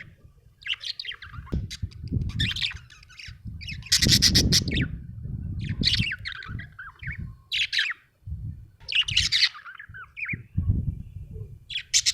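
Budgerigar chirping and chattering in about nine quick, irregular bursts of warbling notes, with a low rumble underneath.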